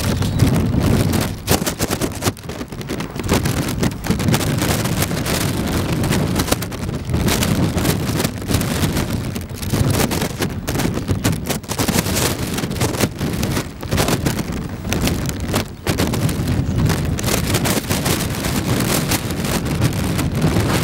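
Wind buffeting the microphone: a loud, gusty rumble that rises and falls without letting up.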